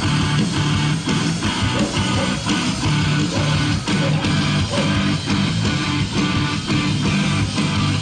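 Rock music with guitar and a steady beat, about two beats a second.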